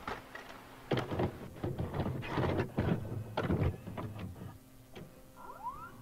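Clunks and clicks of a VCR tape mechanism loading a cassette, as simulated by a VHS-effect app. A short rising whine follows near the end as the deck goes into play.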